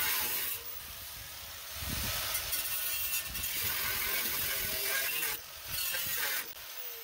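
Corded angle grinder with a cut-off wheel cutting through a steel mower-deck bracket: a steady, harsh grinding hiss that dips briefly a couple of times as the wheel eases off the metal. Near the end the grinder is switched off and its pitch starts falling as it spins down.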